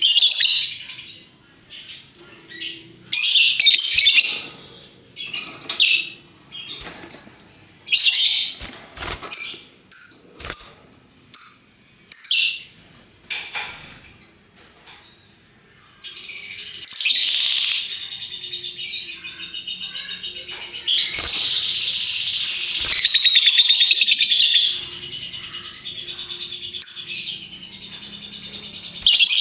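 Lovebird calling: bursts of shrill, high-pitched chirps in the first half, then a long unbroken chattering trill, the 'ngekek' call, loudest for a few seconds near the end.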